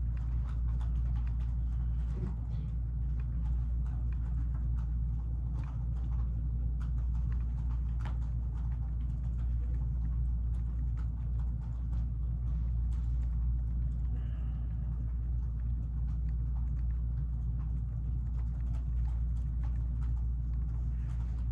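Steady low rumble with scattered light clicks and taps.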